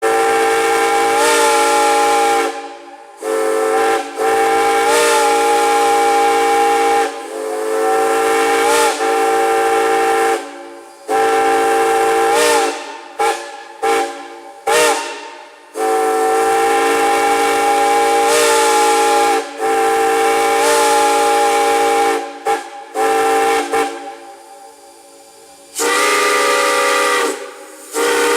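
Steam whistle sounding a chord of several notes at once over hissing steam, blown in long blasts broken by a run of short toots, each blast bending slightly in pitch as it opens. About 26 seconds in, a whistle with a different, lower chord takes over.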